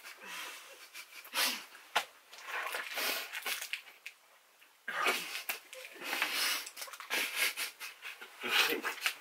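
Two people laughing hard, in wheezing, breathless bursts, with a short lull about four seconds in.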